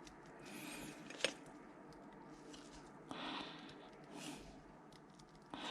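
Faint handling noises from working on bicycle hub parts: a single sharp click about a second in, and a few short scraping rustles.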